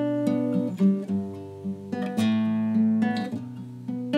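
Background music: acoustic guitar playing plucked and strummed chords, with the chords changing every half second or so.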